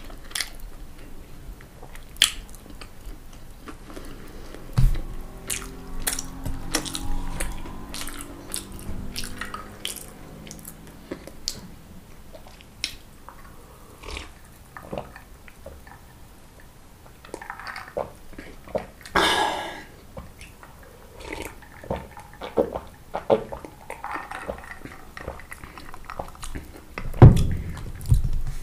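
Close-miked eating: biting and chewing fried food, with many sharp crunchy clicks and wet mouth sounds. A low steady droning tone runs for several seconds in the first half, and a loud low thump comes near the end.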